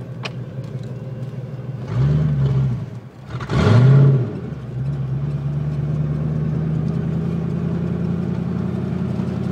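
A 1988 Ford Mustang GT's 302 (5.0 L) V8, open exhaust after the catalytic converters, heard from inside the cabin. It revs up sharply twice, about two seconds in and again a second and a half later, the second time loudest, each rise falling away within a second. It then runs on with a steady drone that slowly rises in pitch.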